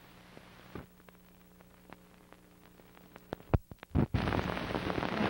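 Faint steady hum on old videotape, then a few sharp clicks and pops about three and a half to four seconds in at an edit between recordings, followed by a loud, even hiss-like noise.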